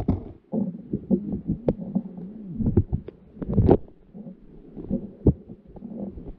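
Octopus arms and suckers gripping and rubbing against an underwater GoPro housing: irregular muffled knocks, clicks and scrapes, the loudest about three and a half seconds in and again just after five seconds, over a low wavering hum.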